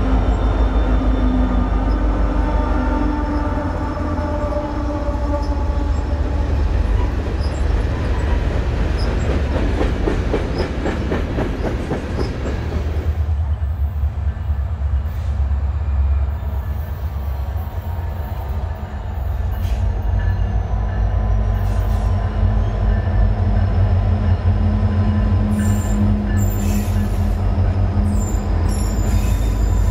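Diesel freight trains passing close by: a Union Pacific locomotive and a Canadian Pacific unit rumble past, their wheels clicking over the rail joints. About 13 seconds in, a second freight train led by Canadian National diesel locomotives rolls past with a steady rumble.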